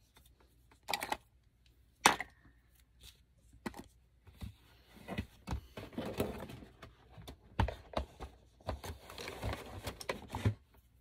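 Small makeup cases and tools being handled. Two sharp clicks come first, then from about four seconds in a busy run of clicks, light knocks and rustling.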